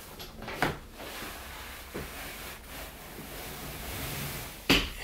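The pull-out bed section of an IKEA FRIHETEN sofa bed is worked back under the seat, with fabric rustling. Its fittings knock about half a second in and give a sharper click near the end as they seat in their slots.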